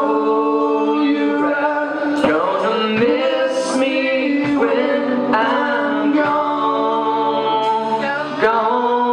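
Live rock band with several male voices singing together in harmony on long held notes, over electric guitar and a few drum hits.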